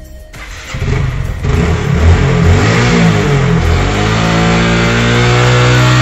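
A Hero 125 cc motorcycle's single-cylinder four-stroke engine starting up on its first run after a fresh oil change and cleaned air filter. It catches about half a second in, revs up and down briefly, then settles into a steady idle from about four seconds in.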